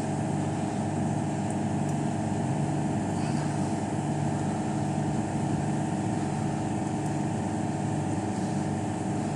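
Refrigeration condensing unit running under pressure, its compressor giving a steady, even hum of several held tones.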